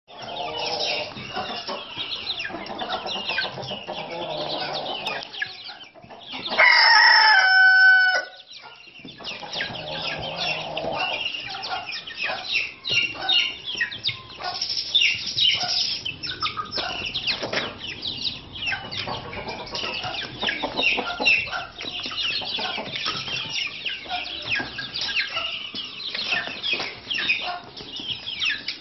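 A flock of young Leghorn chickens, white and partridge-coloured, clucking and peeping without pause. About six and a half seconds in, one young cockerel crows loudly for about a second and a half.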